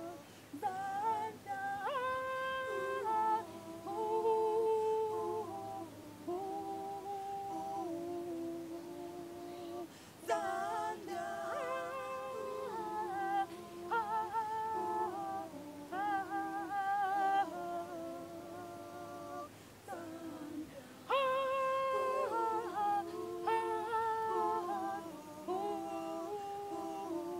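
A small group singing a slow worship chorus without instruments, with long held notes and a phrase that comes round again about every ten seconds.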